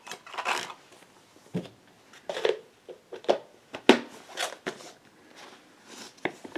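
Handling of plastic disc cases and discs: a run of sharp clicks and short rustles and scrapes, the loudest click about four seconds in.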